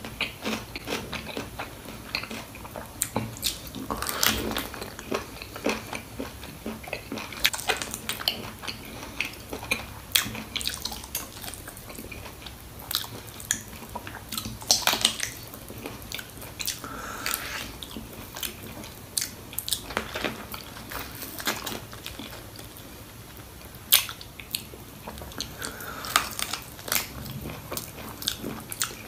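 Close-up eating sounds of a person chewing and biting through goat trotters (mutton paya) in gravy with rice: irregular wet smacks and clicks of the mouth, with now and then a crunch.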